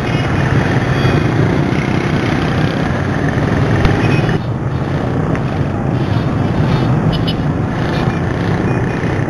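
Steady road traffic noise heard from a moving bike: a dense mix of vehicle engines running close by. A few brief high tones sound about seven seconds in.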